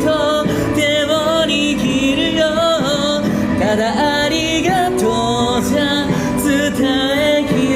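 Music: a solo voice singing a slow melody with wavering vibrato over held instrumental accompaniment.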